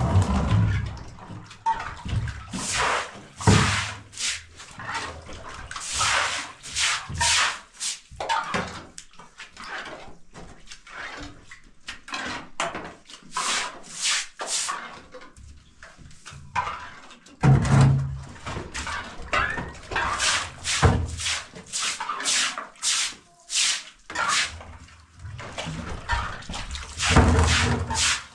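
Straw broom swishing across a wet floor in runs of quick, repeated strokes. Water splashes onto the floor from a tipped plastic bucket three times: at the start, about two-thirds of the way through, and near the end.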